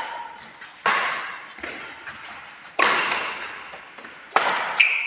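Badminton rackets hitting a shuttlecock back and forth in a rally: sharp hits about every two seconds, then two in quick succession near the end, each echoing and dying away.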